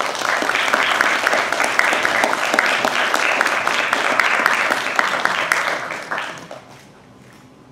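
Audience applauding, a dense steady clapping that dies away about six seconds in.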